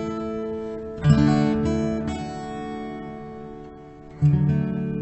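Background music: acoustic guitar chords, strummed about a second in and again near the end, each left to ring and fade.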